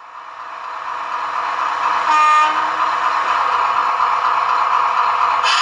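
Sound-chip recording of a Class 70 diesel locomotive's engine playing through the small speaker of a model locomotive, growing louder over the first second or so and then running steadily. About two seconds in there is one short horn blast.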